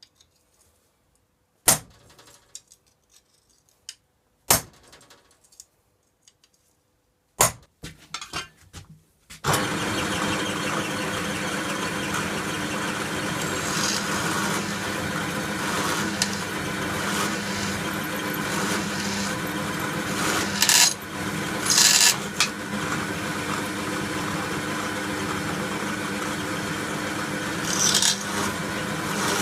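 A few sharp knocks, then about a third of the way in a power tool starts suddenly and runs steadily, with brief louder high-pitched moments near the middle and again near the end.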